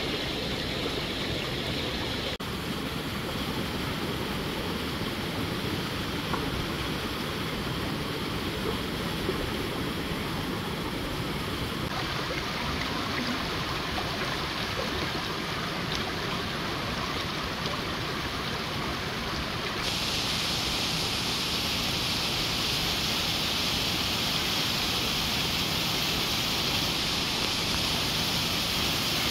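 Mountain stream rushing over rocks below a small waterfall, a steady rushing of water. It changes character a few times and grows brighter and a little louder about two-thirds of the way through.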